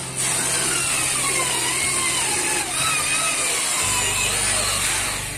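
Handheld electric circular saw ripping a sheet of 18 mm plywood lengthwise, its motor whine wavering in pitch as the blade bites into the wood, dying away near the end.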